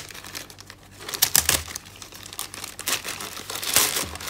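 Grey plastic mailer bag being crinkled and torn open by hand: irregular rustling and ripping, with louder bouts about a second in and near the end.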